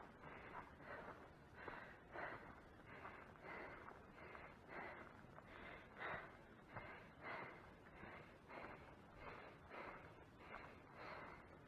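Faint footsteps crunching over dry grass and pine needles at a steady walking pace, about two steps a second.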